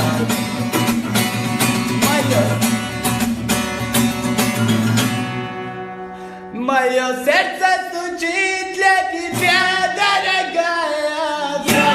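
Music: a song with rhythmically plucked guitar that dips about six seconds in, then a singing voice with wavering pitch.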